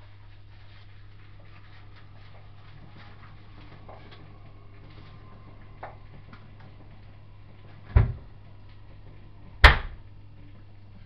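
Two loud, sharp knocks about a second and a half apart near the end, with faint small clicks and a steady low hum beneath.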